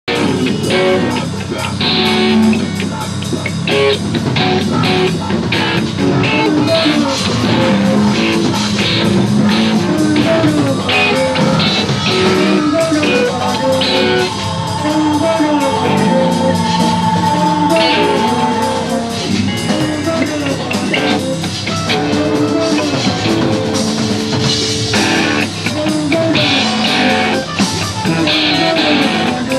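Rock music from a band: electric guitar over a drum kit, with one long held high note about halfway through.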